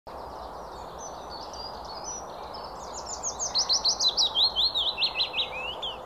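Willow warbler singing: fainter high notes at first, then from about three seconds in a louder phrase of quick, clear notes that step down in pitch. A steady background hiss runs under the song.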